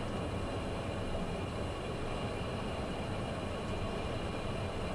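Steady cockpit noise of a Cessna Citation business jet on final approach: a constant rush of airflow and engine hum, with the gear down and flaps full.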